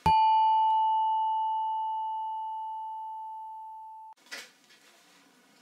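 A single chime sound effect for a subscribe-bell animation: one clear ding on a steady pitch that fades slowly over about four seconds, then cuts off abruptly.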